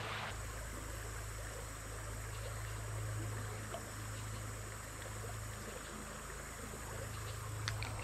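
Steady low rush of shallow river current flowing past, with a few faint ticks near the end.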